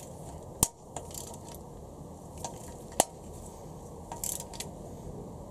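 Torque wrench and 12-point socket on ARP cylinder-head stud nuts, clicking and clinking as the wrench is fitted and pulled through the tightening sequence. There are two sharp clicks about two and a half seconds apart, with lighter metallic clinks and a brief rattle between.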